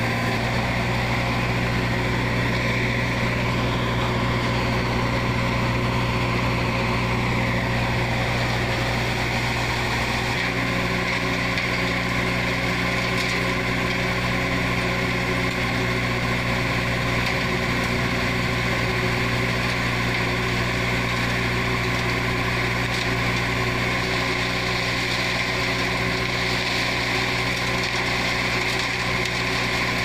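Diesel engine of a C3 concrete mixer pump running steadily, its note shifting slightly about ten seconds in.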